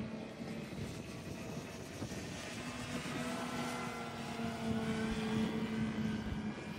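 Saito FG-61TS twin-cylinder four-stroke petrol engine of a Hangar-9 Pitts radio-control biplane running in flight, a steady propeller drone that grows louder past the middle while its pitch slides down slightly.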